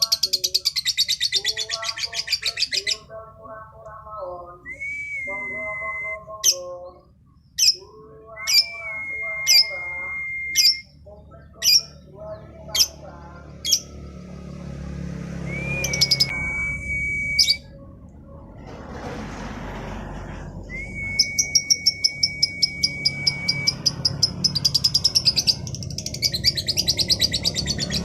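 Female lovebird singing: long runs of fast, rattling high-pitched chatter, sharp single chirps, and several held level whistled notes, with lower broken calls in the first half.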